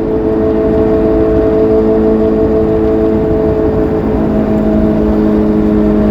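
Suzuki GSR750's inline-four engine running at steady, nearly constant revs while the motorcycle is ridden, with a dense low rushing noise underneath.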